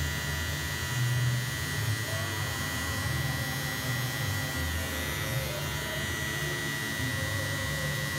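Electric hair clipper running with a steady buzz as its blade cuts short hair at the back and side of the head.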